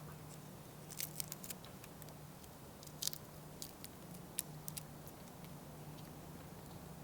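A person chewing and crunching on shrimp cooked down until dry and crisp, with sharp crunches about a second in, near three seconds and around four and a half seconds, over a steady low hum.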